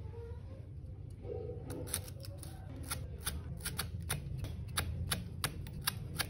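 Kitchen knife slicing a lemongrass stalk on a wooden cutting board: a run of sharp taps of the blade against the board, about three a second, starting about a second and a half in.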